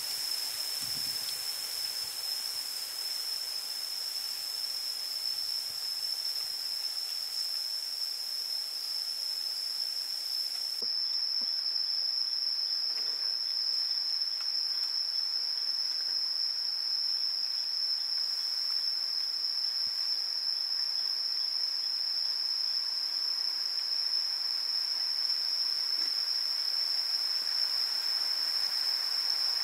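Insects in the forest giving one steady, unbroken high-pitched buzz.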